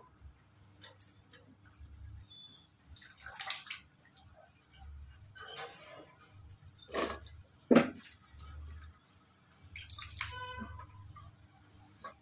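Cut cluster beans dropped by the handful into wet mutton gravy in an aluminium pressure cooker, making scattered soft wet plops and a few sharper knocks against the pot, the loudest about two-thirds of the way through. Faint high chirps are heard between them.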